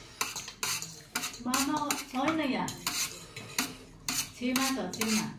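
Metal chopsticks clicking and scraping against a metal baking tray while noodles are picked up, in quick, irregular taps.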